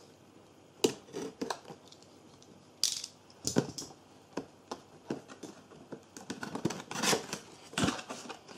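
Cardboard box and its cardboard insert being handled and pulled open: an irregular string of sharp taps, scrapes and rustles of card.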